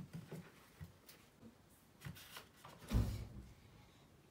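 Small plastic clicks and rustles of cosmetic tubes being handled in a makeup bag, with one louder thump about three seconds in.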